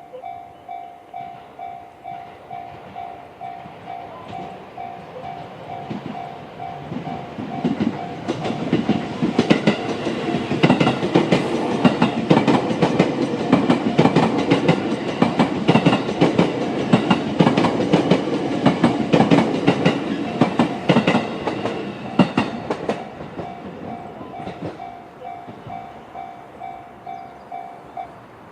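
A JR standard electronic level-crossing bell rings about twice a second while a JR East E653 series electric train runs over the crossing, its wheels clattering over the rail joints for about fifteen seconds. The bell carries on after the train has gone and stops just before the end.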